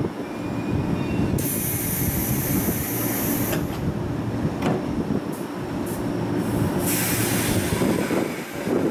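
Railway noise on a station platform: a steady low rumble of trains, with two spells of high hissing, one starting about a second and a half in and lasting two seconds, the other starting near the end.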